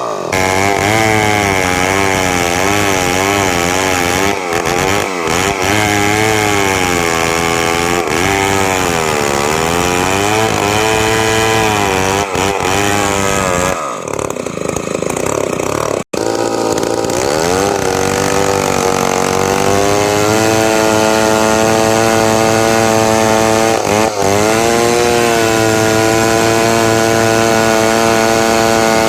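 Two-stroke chainsaw running at high revs while cutting lengthwise through timber to mill beams. Its pitch rises and falls as it bites into the wood, breaks off for an instant about halfway through, then holds steady and higher.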